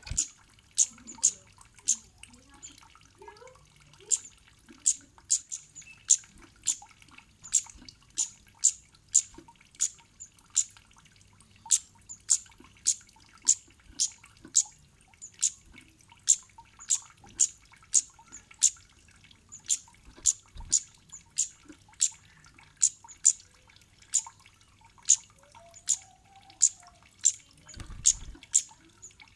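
Cit kemade bird calling: short, sharp, high 'cit' chips repeated about two a second, irregularly spaced and sometimes in quick pairs.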